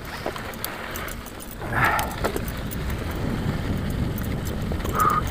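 Mountain bike riding over a dirt track: a steady low rumble of tyres and wind on the microphone, with scattered rattles and clicks from the bike and a brief louder noise about two seconds in.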